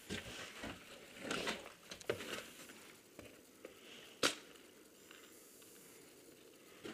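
Crunching footsteps in snow and rustling clothing and gear for the first couple of seconds, then a single sharp crack about four seconds in.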